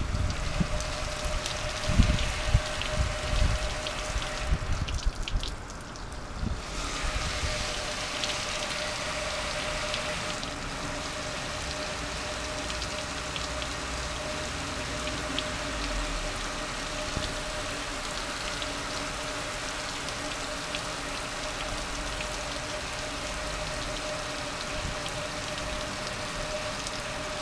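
Water spraying onto a Char-Broil gas grill: a steady hiss and spatter of drops on the metal lid and body, easing off briefly about five seconds in. A few low thumps come in the first few seconds.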